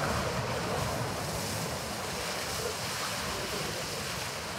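Steady rush of wind and water, with wind buffeting the microphone.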